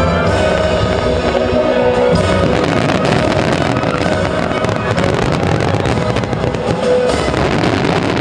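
Fireworks finale barrage: many shells and ground effects firing and bursting in quick succession, making a dense, continuous crackle. Music plays along underneath through most of it.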